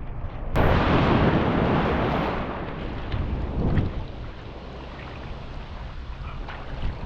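Surf washing around the wader, with wind buffeting the microphone. A loud rush of water starts suddenly about half a second in and dies away over the next few seconds.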